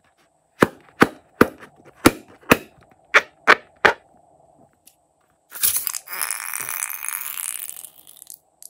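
Eight sharp taps on a taut, slime-filled toy balloon, a few a second. Then, about five and a half seconds in, a hiss with a faint rising whistle for about two seconds as the balloon is squeezed and its contents spray out through the straw nozzle.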